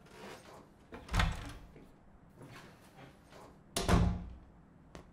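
A door being opened and shut: a dull knock about a second in, then a sharper, louder bang of the door closing nearly three seconds later.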